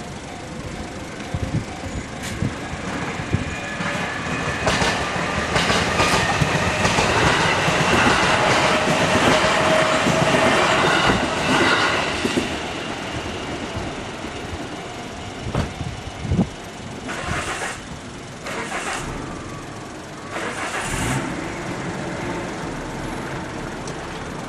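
A train passing over a level crossing: wheels running over the rails with a whine, building to its loudest about a third of the way in and then fading, followed by a few sharp clunks.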